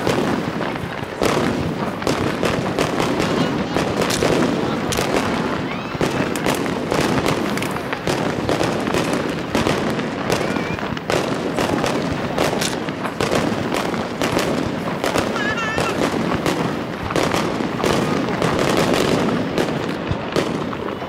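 Aerial fireworks shells bursting in rapid, overlapping succession, many bangs a second with no pause.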